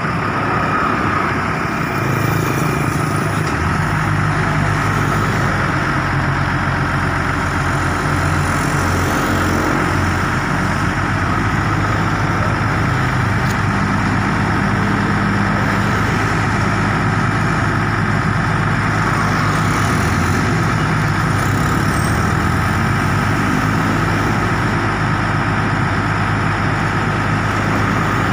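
Hino FG 235 Ti crane truck's turbo-diesel engine running steadily while driving the HMF 1800 knuckle-boom crane's hydraulics as the boom is worked from the side levers. The engine note shifts several times as the controls are operated, and a steady high whine sits over it.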